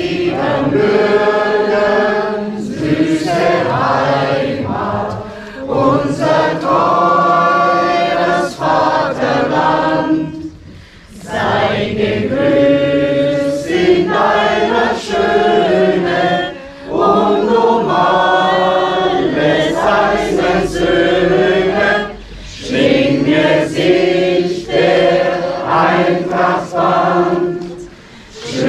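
A mixed group of men and women singing a song together, in phrases of several seconds with short pauses between.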